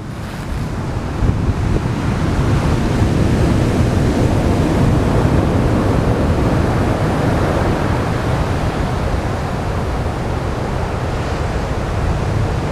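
Heavy storm surf from an approaching typhoon crashing and churning, with strong wind buffeting the microphone. A wave's rush builds over the first few seconds, then slowly eases.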